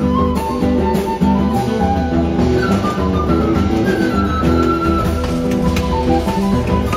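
Background music: a melody moving in short held notes over a steady low beat.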